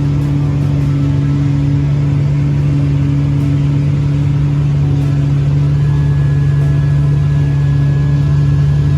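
Case MX285 tractor engine running at a steady speed, a constant drone heard from inside the cab. A faint, thin high tone joins about six seconds in.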